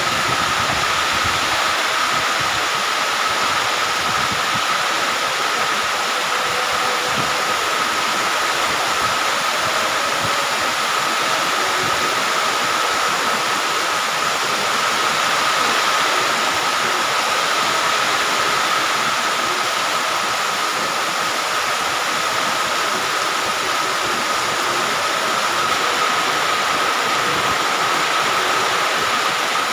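Heavy tropical rain pouring down steadily, a dense even hiss of water with no let-up, and a thin steady tone running underneath it.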